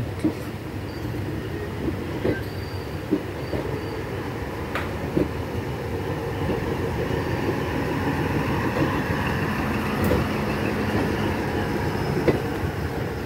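Passenger train running on the rails: a steady rumble of wheels with scattered sharp clacks over the rail joints, growing louder toward the end.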